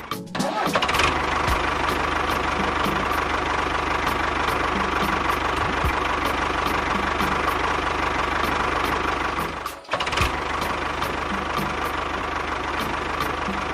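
A small motor running steadily with a faint, regular ticking. The sound drops out briefly near the start and again about ten seconds in.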